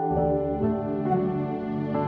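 Gentle new-age background music with soft sustained keyboard notes.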